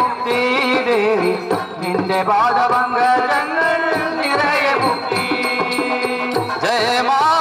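Men singing a Malayalam devotional song into microphones, a lead voice with sustained, ornamented melody lines, over steady hand-drum strokes.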